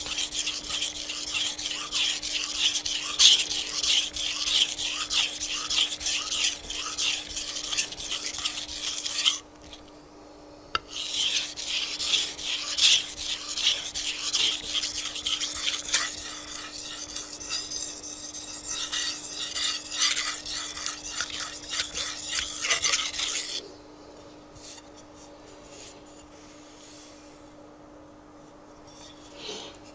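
A Japanese chef's knife blade is stroked rapidly back and forth on a wet 800-grit whetstone, a gritty, rhythmic scraping that sets the edge. The strokes pause briefly about nine seconds in, resume, and stop about two-thirds of the way through, leaving a few faint taps over a low steady hum.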